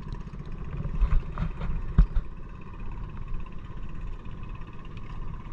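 A small boat engine running steadily at low revs, with a few sharp knocks, the loudest about two seconds in.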